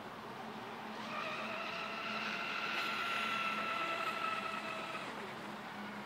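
Radio-controlled flat catamaran's LMT 1535/8 brushless electric motor whining at high revs as the boat runs across the water. The steady high whine builds about a second in, is loudest midway, and dies away about five seconds in.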